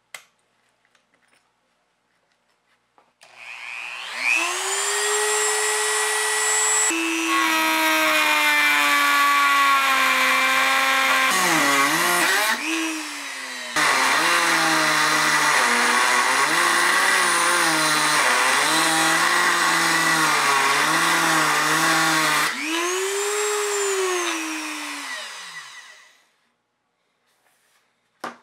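Dremel rotary tool with a cut-off wheel spinning up with a rising whine, then cutting through a headset spacer, its pitch dropping and wavering under load. It winds down with a falling whine near the end.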